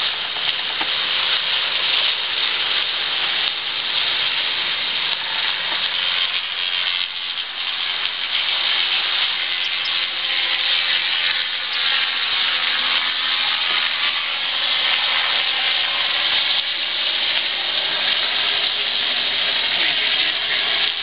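Steady rushing hiss of water streaming past the hull of a Farr 44 racing yacht sailing downwind under spinnaker, with faint steady tones underneath.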